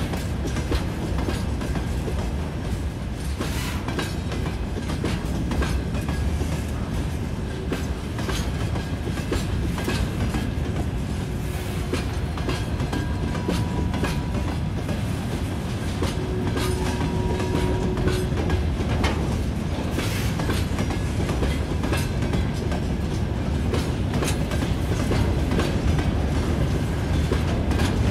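Freight train of open gondola wagons rolling past: a steady rumble with the clickety-clack of wheelsets knocking over rail joints. Faint thin squealing tones come and go twice in the middle.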